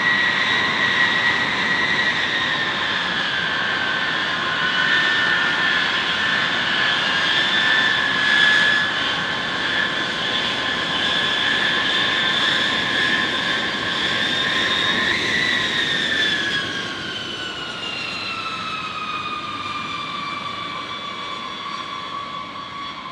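B-52H Stratofortress's eight TF33 turbofan engines running at taxi power as the bomber rolls past: a high whine over steady jet noise. About fifteen seconds in the whine slides down in pitch and the sound grows quieter as the aircraft moves away.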